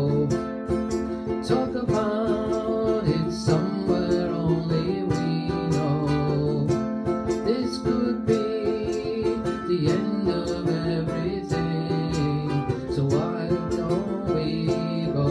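Acoustic guitar strummed steadily, with a man singing over it in a live solo performance.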